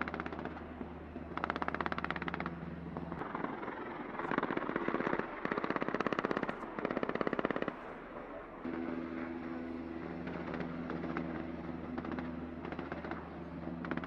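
Four rapid bursts of automatic gunfire in the first half, over a steady helicopter engine and rotor hum. The hum carries on alone, with a steady whine added, in the second half.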